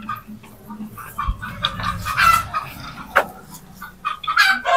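Chickens clucking, in several short calls, with one sharp click about three seconds in.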